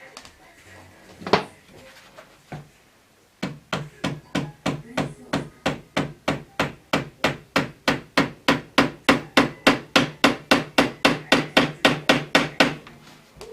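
Hammer blows on wood: two single knocks, then a steady run of quick taps, about three or four a second for some nine seconds, growing louder as it goes.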